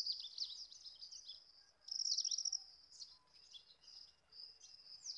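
Night chorus of high-pitched chirps and short trills, several callers overlapping, with quick downward-sweeping notes and a louder burst about two seconds in.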